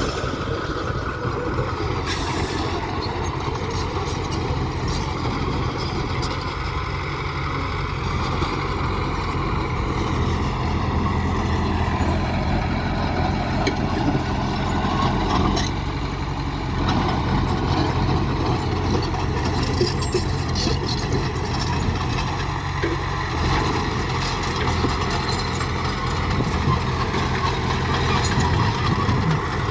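Heavy diesel construction machinery engine running steadily, with a few short knocks in the middle.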